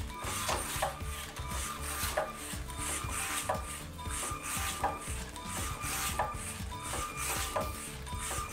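LEGO SPIKE Prime robot monkey swinging on its pendulum rig, its plastic parts rubbing and clicking over and over, with short motor whirs as the motors curl and extend the body in time with the swing to pump energy into it.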